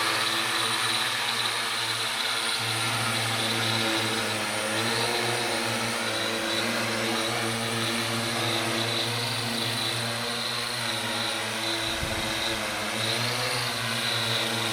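Quadcopter's brushless motors and propellers humming steadily in flight, the pitch wavering slightly as the motors adjust. There is a brief low rumble near the end.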